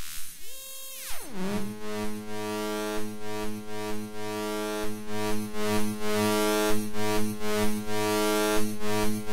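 Analog synthesizer oscillator swept down in pitch by hand, then settling into a steady, harmonically rich buzzing drone through the fuzz, which pulses rhythmically under CV modulation.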